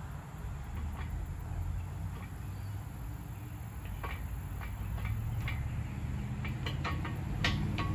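Steel pallet fork tine clinking and knocking against the fork frame's crossbar as it is worked into place, with sharp metal clicks that come more often in the second half, over a steady low rumble.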